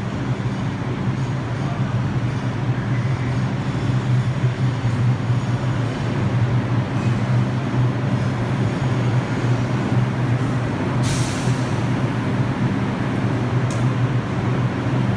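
New York City subway train standing at a terminal platform: a steady low hum with a hiss of released air about eleven seconds in that lasts about a second, and a shorter hiss near the end.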